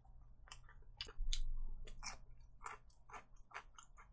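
Close-miked chewing of crisp-coated fried chicken: a quick run of sharp, crackly crunches and mouth smacks, with one louder low thump about a second in.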